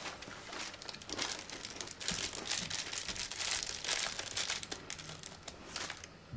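A small biscuit wrapper crinkling and tearing as it is picked open by hand, in quick crackly bursts for several seconds.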